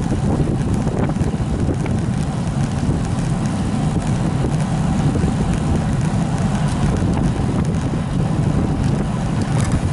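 Steady wind rush over the microphone of a camera on a moving bicycle, the rider pedalling at speed.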